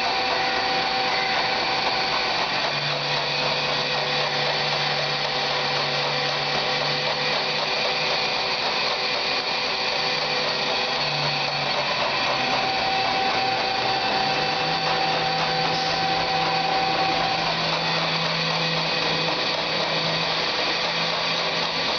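Harrison Alpha 600 CNC lathe running: a steady mechanical whir with several steady whining tones, and a low hum that comes in a few seconds in, drops away midway and returns.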